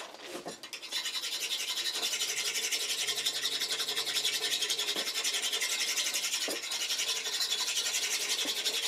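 A round abrasive bar is stroked quickly back and forth across the face of a V-band exhaust flange, several strokes a second, scraping metal down. The flange is being ground flat because it warped during welding and was leaking exhaust.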